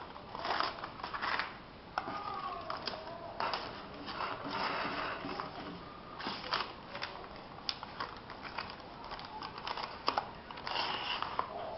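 Irregular clicks, knocks and paper rustling as hands fit a label roll and metal guide rods into an AL-1150D automatic label dispenser.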